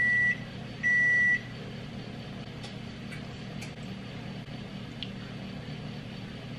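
Kitchen timer going off: two long, high electronic beeps about a second apart, then quiet. The timer is signalling that the cookies' baking time is up.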